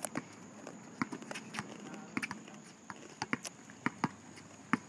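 Players' sneakers slapping on an asphalt court as they run, mixed with a basketball bouncing, in irregular sharp knocks.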